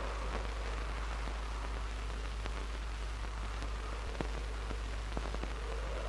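Steady hiss with a constant low hum and a few scattered sharp clicks.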